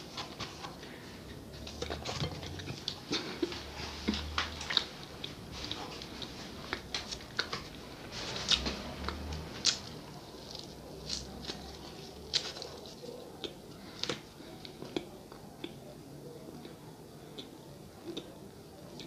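Close-miked biting and chewing of soft cheese bread, with many short mouth clicks and smacks scattered irregularly throughout.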